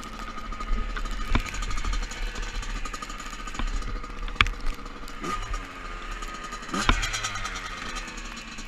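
Two-stroke dirt bike engine idling, with two quick blips of the throttle about five and seven seconds in, and a few sharp clicks.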